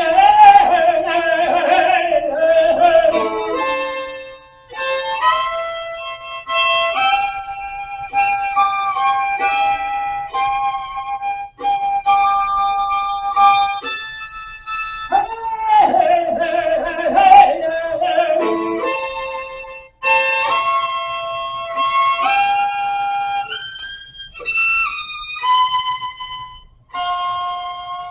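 Solo violin playing a slow melody of long held notes, some with wide vibrato, in phrases separated by short pauses.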